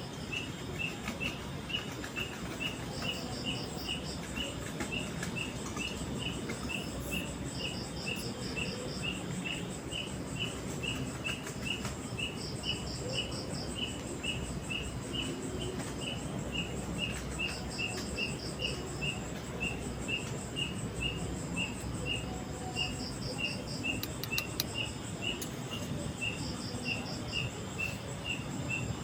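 Forest wildlife calling: a steady run of short high chirps, about three a second, with a quicker, higher trill of pulses every three seconds or so. An even low rushing noise lies beneath.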